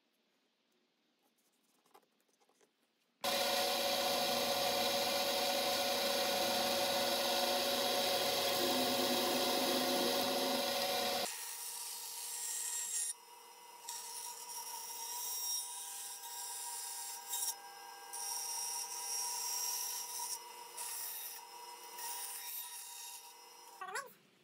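A loud power tool runs for about eight seconds, then a bandsaw runs and cuts through a thin figured maple board, its sound dipping briefly several times as the cut goes on.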